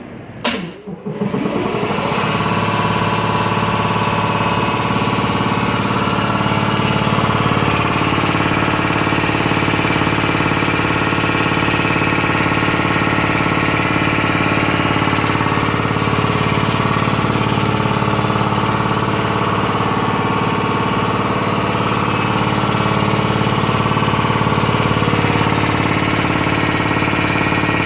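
Curtis E-57A two-stage 7.5 HP air compressor with a three-phase electric motor starting up: a sharp click about half a second in, the pump coming up to speed over the next second or so, then running steadily and loud, the reciprocating pump pounding evenly.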